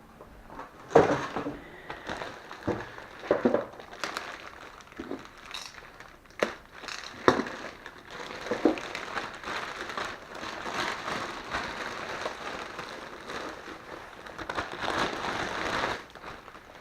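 Unboxing packaging being handled: crinkling and rustling, with several sharp knocks as parts are set down, and a longer stretch of steady rustling in the second half.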